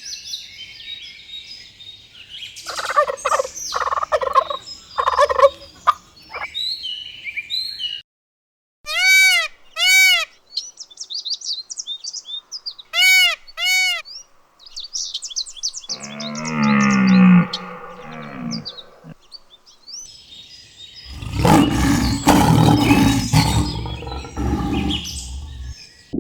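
A string of different animal calls, mostly birds, one after another. There are paired arched whistling calls with chirps between them, a lower call that falls in pitch in the middle, and a loud, noisy stretch of calling near the end.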